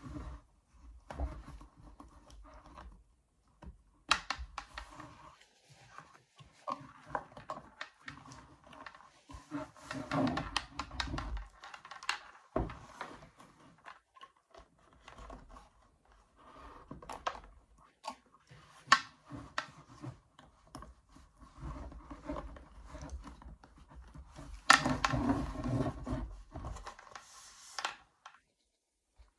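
Cotton-spandex PICC line sleeve rustling and rubbing as it is pulled and rolled off a training arm, with irregular scrapes and a few sharp knocks and clicks from handling the arm. The longest, loudest spell of rustling comes near the end.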